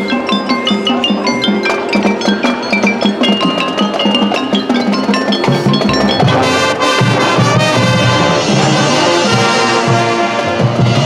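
Marching band show music: the front-ensemble mallet percussion (bells, xylophone, marimba, chimes) plays a quick run of short ringing notes, then about six seconds in the full band comes in with held brass chords over drums.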